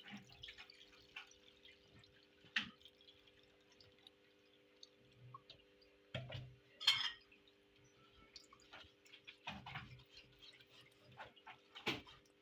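Freshly squeezed mandarin juice being strained through a sieve into a bowl: scattered drips and small clinks of the strainer and dishes, with a few sharper knocks.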